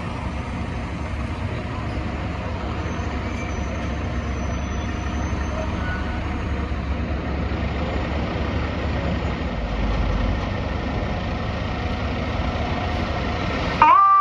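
Heavy diesel engine of a fire apparatus idling steadily, a low rumble under city background noise. Near the end the sound changes abruptly and a siren starts, rising in pitch.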